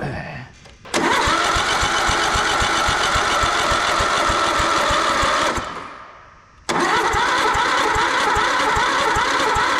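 John Deere 111 riding mower's engine turned over on its electric starter in two long bursts of about four seconds each, with a short break between, without catching: the engine has a fuel supply problem.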